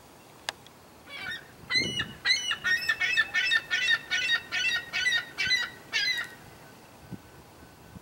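Juvenile gull calling: a quick run of about a dozen repeated, rising-and-falling calls lasting about five seconds, the begging call of a young gull after food.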